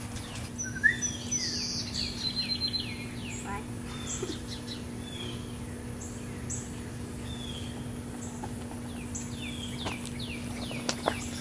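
Songbirds chirping again and again in short falling notes, with a quick high trill about two seconds in, over a steady low hum. A couple of sharp clicks come near the end.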